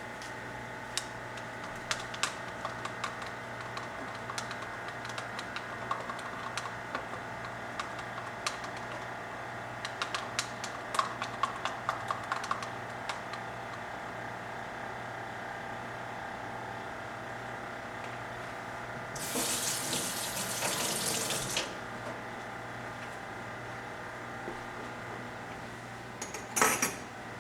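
Scattered light clicks and taps of kitchen things being handled over a steady low hum, then about two seconds of water running or pouring, and a short sharp clatter near the end.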